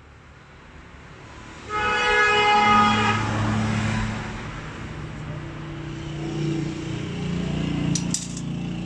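A motor vehicle passing by: engine noise swells, then a single horn blast of about a second and a half sounds nearly two seconds in and is the loudest sound, followed by a lower engine drone that slowly fades. A few sharp metallic clicks come near the end.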